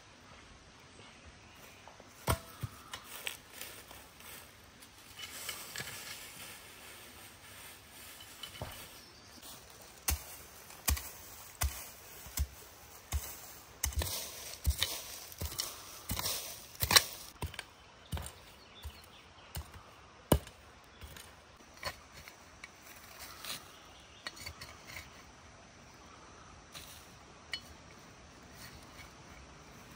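Knife cutting vegetables on a cutting board: irregular sharp cuts and knocks, coming thick and fast in the middle and thinning out towards the end.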